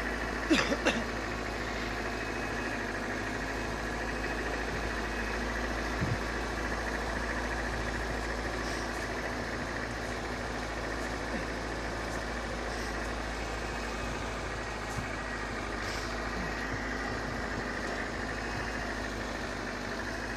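Pickup truck engine running steadily at low revs while the truck crawls through deep snow. A few sharp clicks come just under a second in.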